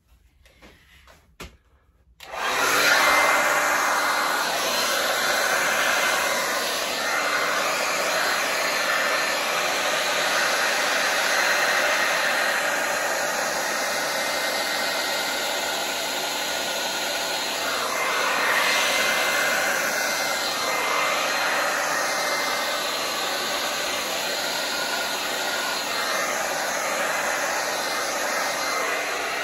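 Handheld hair dryer switched on about two seconds in, then blowing steadily as its air pushes wet acrylic paint across a canvas.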